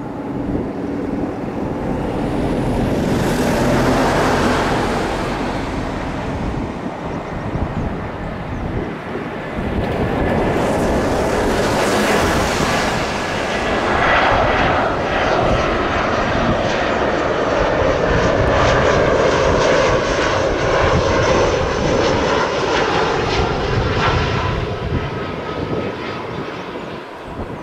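Airbus A319-112 airliner's CFM56 turbofan engines on final approach: a continuous jet rumble with a faint whine, swelling a couple of times and loudest through the latter half before easing near the end.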